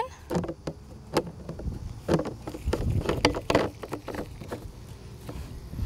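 Threaded plastic plug being screwed into a PVC cleanout adapter and PVC parts handled on a plastic table: scattered light clicks and knocks over a low rumble.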